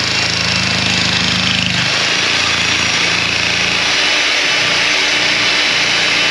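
Electric breaker hammering steadily into the old concrete footing of a fence post, breaking it out.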